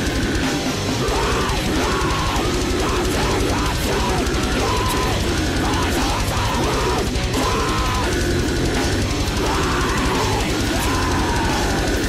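Mathcore band recording: a drum kit and electric guitars playing loudly in heavy-metal style.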